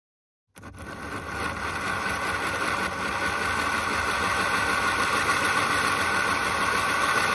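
The small electric motor of a Tri-ang R.52 OO gauge tank locomotive, fed directly at its brushes, starts about half a second in, speeds up over the first couple of seconds and then runs with a steady whir. The motor itself works, so the owner puts the loco's poor running down to dirty wheels and pickups.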